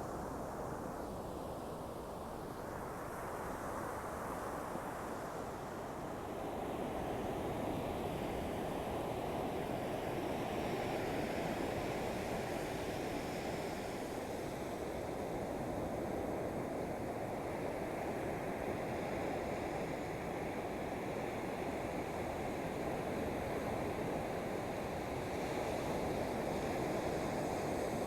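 Ocean surf: waves breaking and washing on the shore, a continuous wash of noise that swells slightly a few seconds in.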